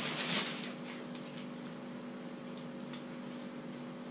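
Plastic packaging rustling and crinkling for about the first half second as a parcel is opened, then only a few faint light ticks of handling over a steady low hum.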